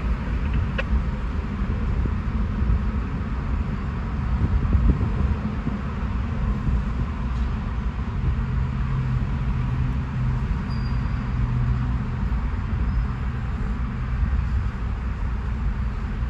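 Freight train cars rolling past at low speed: a steady low rumble with a few faint wheel clicks, heard from inside a car cabin. A steady low hum joins about six seconds in.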